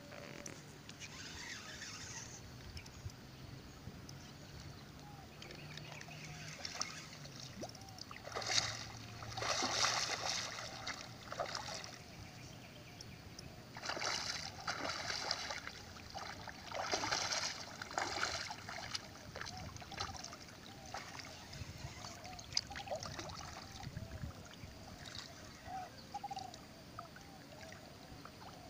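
Hooked bighead carp thrashing at the surface while being played on a fishing line, in three separate bouts of splashing, with quieter water lapping between them.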